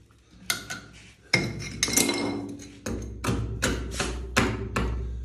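A series of about eight sharp knocks and clinks of hard objects striking, irregularly spaced, some with a brief ring.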